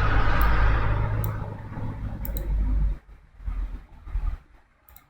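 A low rumbling roar playing back from a media player on the computer, fading down over about three seconds as its volume is turned down, leaving only a few faint low thumps.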